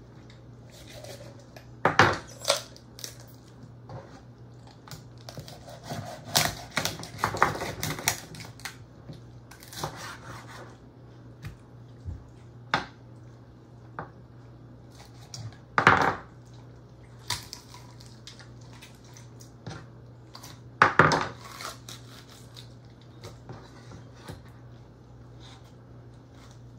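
Chef's knife cutting up whole raw chickens on a wooden cutting board: irregular sharp knocks as the blade goes through the joints and strikes the board, with smaller scrapes and clicks between. Three knocks stand out, well apart.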